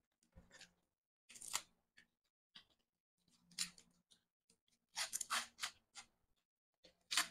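Crisp lettuce leaf crackling and snapping in about five short bursts as it is torn apart by hand and bitten.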